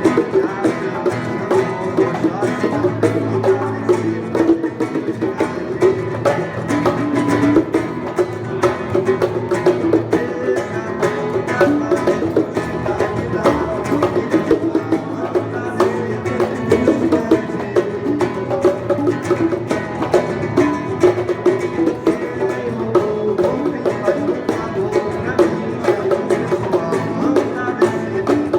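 Live acoustic music: a plucked acoustic guitar (violão) played with sharp hand-percussion strokes, steady throughout.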